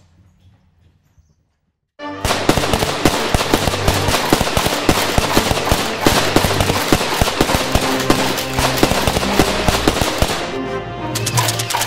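Loud background music starts abruptly about two seconds in, with a fast beat of rapid sharp pops and clicks that resemble gunfire.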